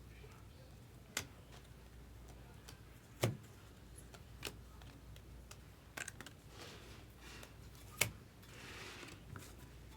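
Trading cards being handled: a few soft clicks and taps as cards are flipped and set down, with a brief rustle of card stock near the end.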